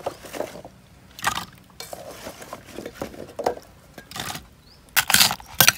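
Irregular clinks and knocks of utensils in a mortar as lotus stems are mixed into a pounded Isan-style salad, with a louder run of knocks near the end.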